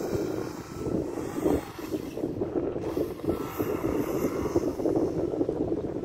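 Wind buffeting the microphone in uneven gusts: a rough, fluttering rumble that rises and falls.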